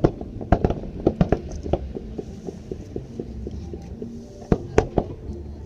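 Fireworks shells bursting in a display: a quick run of sharp bangs, a short lull, then a few louder bangs near the end, over a steady low rumble.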